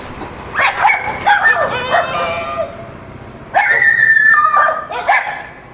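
Stray dogs barking and yelping in a string of short calls, then one long high-pitched whine about three and a half seconds in.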